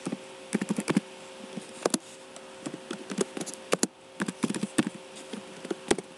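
Typing on a computer keyboard: irregular runs of keystroke clicks with short pauses between them, over a steady electrical hum.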